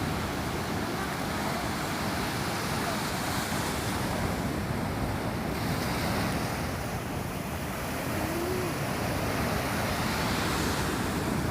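Sea surf washing in steadily, with wind on the microphone.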